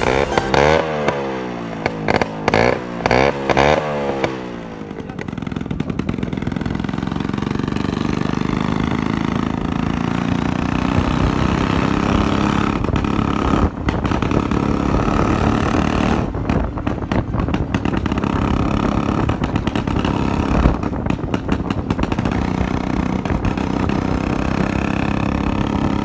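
Motorcycle running without its exhaust silencer as it is ridden along, its engine note steady with small rises and dips. For the first four seconds or so, music with sweeping rising and falling tones plays before the engine sound takes over.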